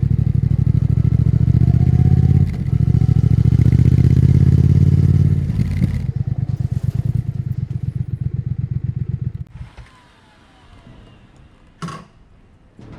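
Triumph Thruxton RS 1200 cc parallel-twin engine running at a steady idle with distinct exhaust pulses, dropping in level about five and a half seconds in and then shutting off a few seconds later. A single sharp click follows near the end.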